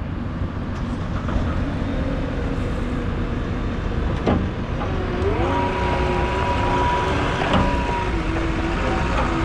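Cat 226D3 skid steer's Caterpillar C2.2 turbo diesel engine running, its pitch stepping up a little about five seconds in, with a couple of short knocks.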